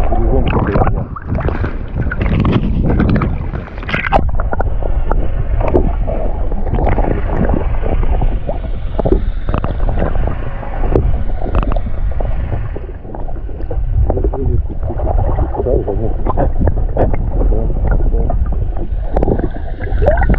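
Muffled, continuous rushing and sloshing of water picked up by a camera held underwater, with irregular knocks and gurgles as a released catfish swims away.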